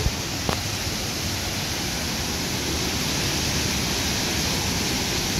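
Heavy rain pouring down in a steady, even hiss, with a single short click about half a second in.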